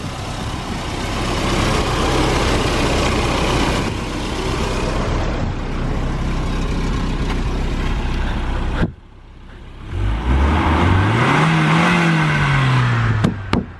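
Car engine running steadily, then after an abrupt cut a single rev whose pitch rises and falls back.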